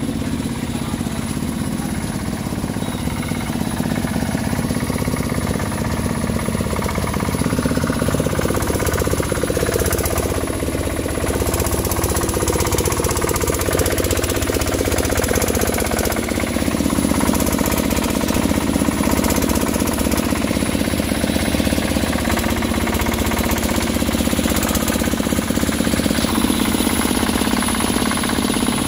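A machine running with a steady, rapid mechanical rattle, a little louder after about four seconds.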